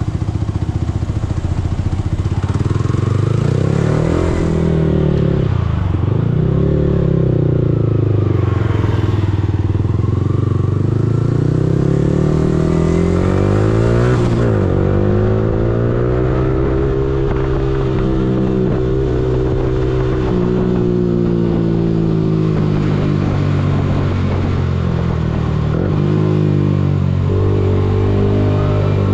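Yamaha R15M's single-cylinder engine pulling away and accelerating through low gears, its pitch climbing and then dropping sharply at each gear change several times before settling into a steadier, light-throttle run.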